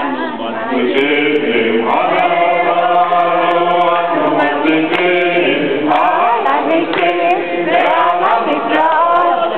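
A group of men and women singing a Hanukkah candle-lighting song together, many voices in unison.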